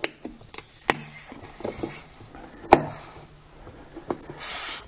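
Hands squeezing and working a soft silicone-rubber nightlight shell, trying to pull it off its plastic insert: a few sharp clicks, the loudest a little under three seconds in, then a brief rubbing scrape near the end.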